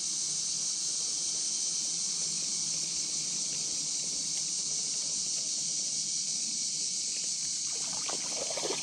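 Steady high-pitched drone of an evening insect chorus. From about three-quarters of the way in, light clicking and rattling from fishing tackle being handled.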